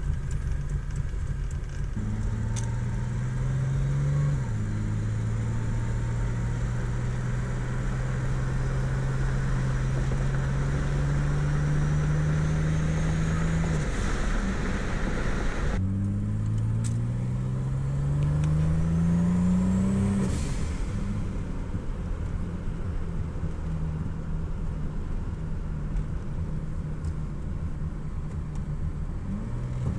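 Turbocharged 3800 V6 heard from inside the car's cabin: idling with a surge at first, then pulling away, its note climbing, dropping once at a gear change about four seconds in, and climbing steadily again. Later it climbs once more with a faint rising turbo whistle before settling to a steady lower note.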